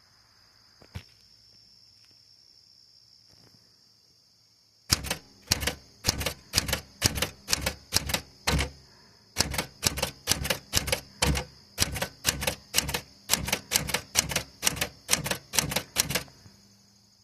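Smith Corona Galaxie 12 manual portable typewriter being typed on: a steady run of sharp keystrokes, about three a second, with the typebars striking the platen. The typing starts about five seconds in, pauses briefly once, and stops near the end.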